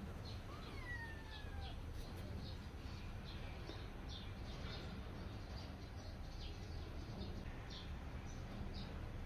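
Small birds chirping: many short, high, scattered chirps, with one longer falling call about a second in, over a faint steady low hum.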